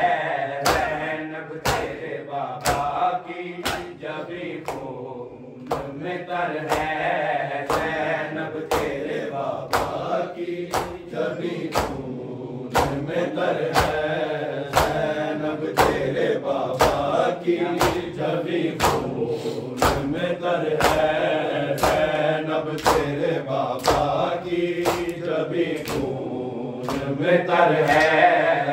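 Men chanting a noha (Shia lament) together, with rhythmic matam: open hands slapping bare chests in a steady beat, roughly once a second, under the voices.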